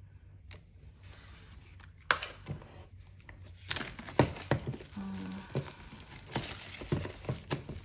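Plastic shrink wrap on a boxed album being slit and peeled off by hand, crinkling with scattered sharp crackles, busiest in the second half.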